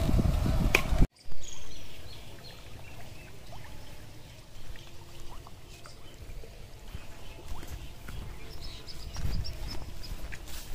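Quiet outdoor ambience with a faint steady hiss and a short run of high bird chirps near the end. A loud low noise fills the first second and cuts off suddenly.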